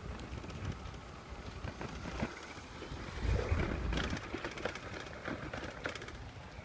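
Outdoor street ambience on a handheld phone being carried while walking: a low rumbling noise that swells louder about three seconds in, with scattered light ticks.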